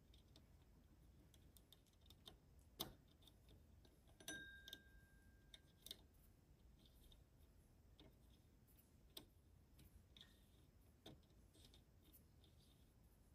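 Near silence broken by faint, irregular small metal clicks of an Allen key turning and tightening set screws in a centrifugal clutch, with one brief faint squeak about four seconds in.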